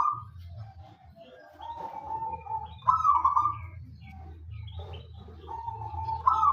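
Zebra dove (perkutut) cooing. Twice, a held low coo runs into a louder rolling burst of notes, the phrase repeating every three to four seconds.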